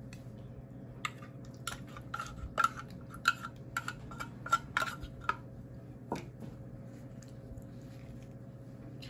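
A metal tuna can being scraped out and knocked with a plastic utensil over a plastic bowl: a run of sharp ringing clinks, about two a second for a few seconds, then one more.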